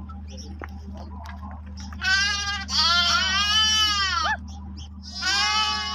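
Sheep bleating: long, wavering calls begin about two seconds in, with another near the end. A steady low hum runs underneath.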